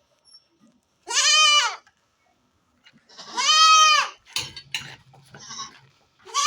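Goats bleating: three loud calls, each under a second long, the last starting near the end, with a few light knocks after the second call.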